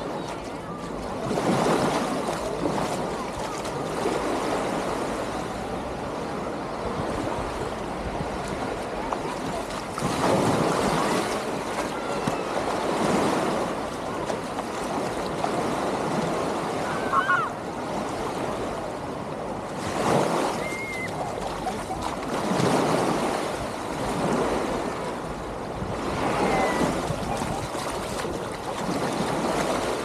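Small waves washing onto a sandy shore, swelling in surges every few seconds, with faint distant voices of people on the beach.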